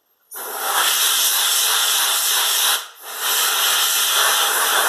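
Compressed air hissing as it is blown through the foam air filter under the mower's battery, in two long blasts with a short break a little under three seconds in.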